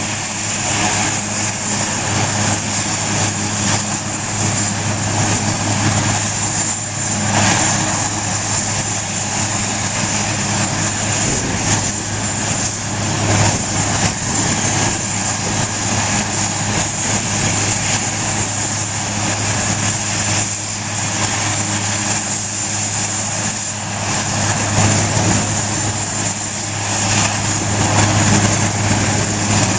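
Eurocopter Super Puma helicopter running on the ground with its main rotor turning, waiting to take off: a steady, high turbine whine over the rotor and engine noise.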